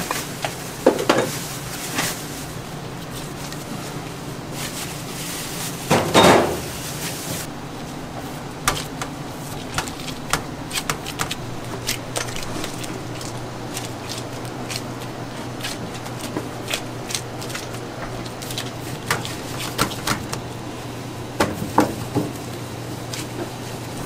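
Food-preparation sounds in a pizza kitchen: scattered clicks and knocks of utensils and dishes over a steady low hum, with a louder sound about six seconds in.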